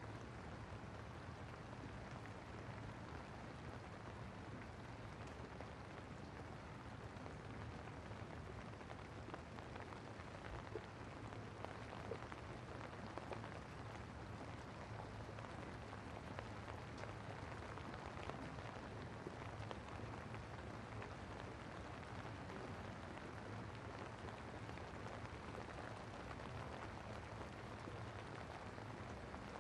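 Steady rain falling and pattering, with a few louder drop ticks in the middle.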